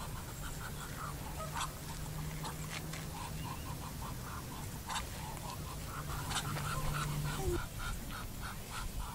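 White Muscovy duck giving runs of short, soft, breathy huffs, about four to five a second, in bursts of a second or more. This is the panting-like calling of a Muscovy rather than a quack.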